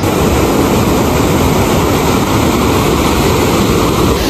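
Fast mountain river rushing over rocks: a loud, steady wash of white water.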